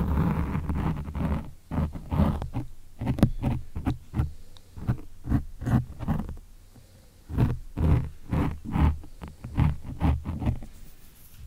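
Fingers rubbing and scratching the foam windscreen of a ZOOM recorder's microphone, a run of close, muffled scrubbing strokes made to stand in for ear-cleaning sounds. There is a brief lull a little past halfway before the strokes resume.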